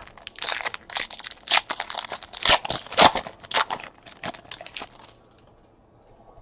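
Foil wrapper of a 2018 Panini Elite Extra Edition baseball card pack being torn open and crinkled by hand: a quick run of crinkling rips and crackles that ends about five seconds in.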